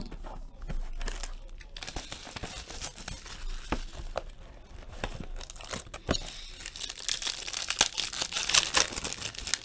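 Clear plastic shrink-wrap crinkling and tearing as it is pulled off a sealed box of trading cards, full of sharp crackles. Quieter handling for about the first two seconds, then the crinkling grows louder toward the end.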